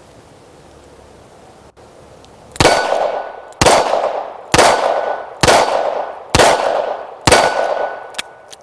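Six shots from a Rock Island Armory AL9.0 9mm revolver, about one a second, firing low-quality steel-cased ammunition from a moon clip, with the hits ringing on a steel target. A short click follows near the end.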